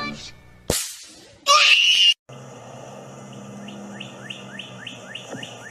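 A sharp click, then a loud shriek of about two-thirds of a second that stops abruptly. After a brief silence, a run of quick high chirps, each falling in pitch, about three a second, over a low steady hum.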